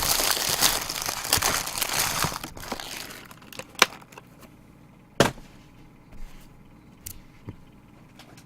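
Foil trading-card pack wrapper being torn open and crinkled: a dense rustling crackle for about two and a half seconds that fades off, followed by a few sharp single clicks as the cards are handled.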